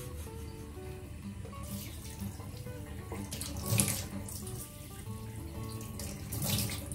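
Water splashing at a bathroom sink as a face is rinsed with cupped hands under the tap. It comes in three bursts of splashing, the loudest a little past the middle.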